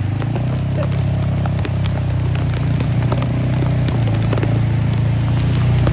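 Small motorcycle engine running steadily while riding in heavy rain, under a hiss of rain and wind, with many scattered sharp ticks of raindrops striking the phone.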